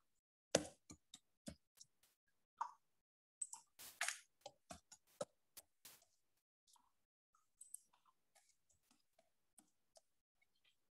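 Computer keyboard keys being pressed in irregular clicks, with a quick run about half a second in, a louder cluster around four to six seconds, then fainter scattered keystrokes.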